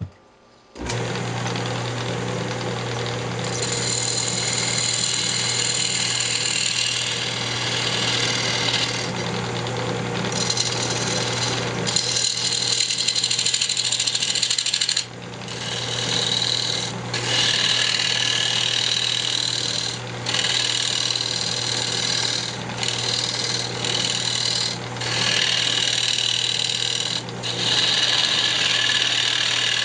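Wood lathe running with a steady motor hum while a turning tool cuts a square cherry bowl blank in repeated passes. The cutting starts under a second in and drops away briefly between passes every few seconds.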